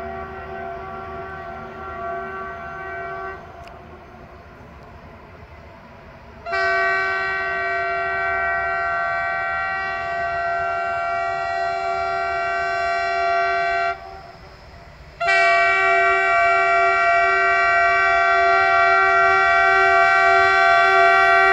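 South African Railways class 18E electric locomotive sounding its horn as it approaches: the end of one blast, then a long blast of about seven seconds, then another blast starting about 15 seconds in and still held at the end. Each blast is several steady notes sounding together, and the later blasts are louder as the locomotive draws nearer.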